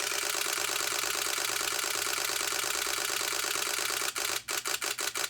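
Nikon D500 DSLR shutter and mirror firing a rapid continuous-high burst. A little after four seconds in, the burst breaks into a handful of separate, uneven shots as the camera's buffer fills, which the owner puts down to a full XQD card.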